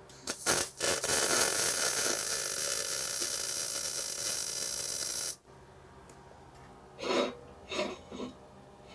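MIG welding gun running solid (hard) wire, laying a quarter-inch tack weld on a steel pipe joint. The arc strikes with a couple of short spits, runs with a steady hiss for about four seconds, then cuts off sharply. A few short sounds follow about two seconds later.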